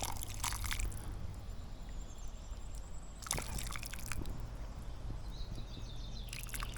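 Fish soup being ladled from a pot into a plate: liquid sloshing and dripping in three short bouts.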